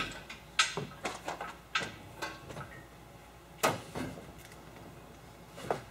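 Irregular clanks and knocks of hard parts being handled, several in quick succession over the first two and a half seconds, one followed by a brief ring, the loudest about three and a half seconds in and another near the end.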